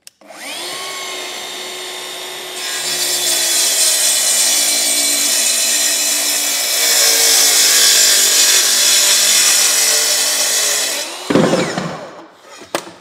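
Festool HKC 55 cordless track saw spinning up with a rising whine, then ripping across a white oak stair tread along its guide rail, growing louder as the blade bites into the wood for about eight seconds. Near the end the saw winds down with a loud knock and a few clicks.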